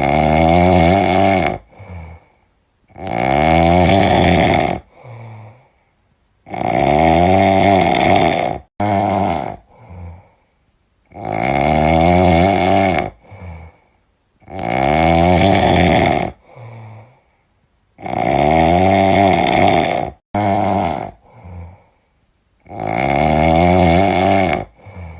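Domestic cat snoring loudly in a steady rhythm: a long, pitched snore about every three and a half to four seconds, each followed by a shorter, softer breath.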